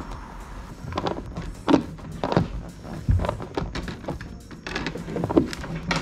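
Irregular knocks and clicks of a metal button-light fitting handled and fitted into a hole in a plastic kayak hull, with background music.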